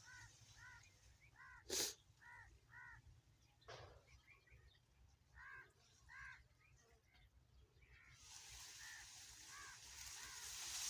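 Faint bird calls, short arched notes repeated about two to three a second, with a sharp click about two seconds in and a softer one near four seconds.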